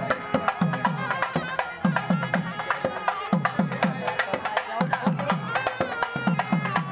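Tamate frame drums beating a fast folk dance rhythm in a repeating pattern, with a wavering high melodic line above the strokes.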